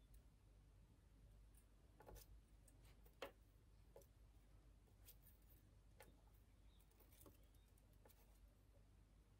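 Near silence with faint, scattered clicks and light taps as pliers and fine 0.5 mm jewellery wire are handled while two strands are twisted together; the sharpest click comes about three seconds in.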